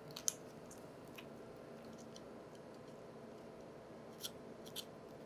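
A few faint, sharp snips and clicks as a blade cuts through the bone and cartilage to free a raw chicken's backbone, spaced irregularly with the sharpest right at the start.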